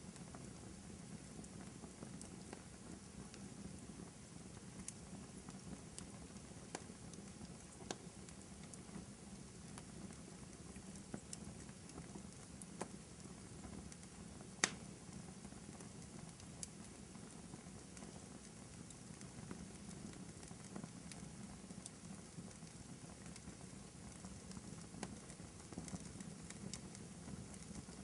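Fireplace fire crackling faintly: a steady low rush with scattered sharp pops and snaps, one louder pop about halfway through.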